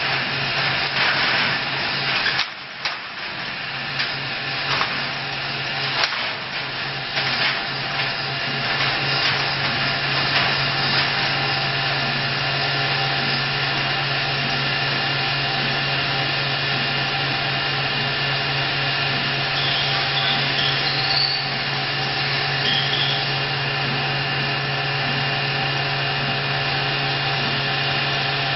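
Seismic shake table running under a rack cabinet during a vibration test: a steady machine hum with a hiss over it. Irregular clicks and knocks come through roughly the first eight seconds before the sound settles into a steady drone.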